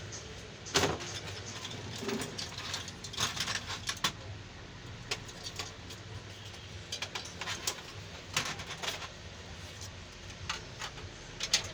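Irregular scratching strokes and light clicks of a pencil or metal probe being rubbed over the key contacts of an electronic keyboard's circuit board, over a faint low steady hum.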